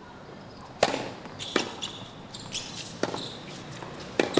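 Tennis point on a hard court: a serve is struck with a sharp pop about a second in, followed by further sharp pops of racket hits and ball bounces in the rally, roughly one every second.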